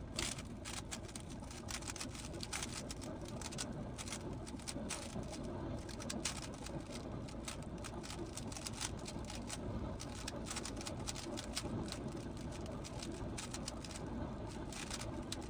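GAN 15 speedcube being turned rapidly by hand, its layers clicking and clacking in a fast, continuous stream of small plastic snaps.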